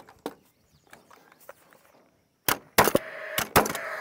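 Several sharp knocks on timber, loud and close together in the last second and a half, with a steady mechanical hum starting alongside them.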